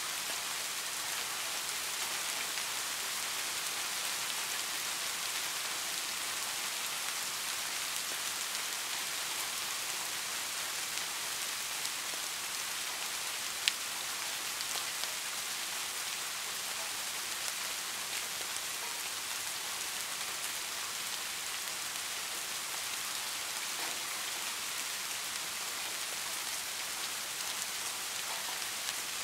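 Heavy rain falling steadily, an even dense hiss of drops, with one sharp tick about halfway through.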